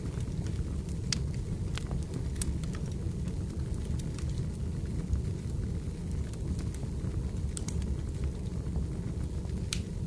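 Firewood burning: a steady low rumble of flames with scattered sharp crackles and pops.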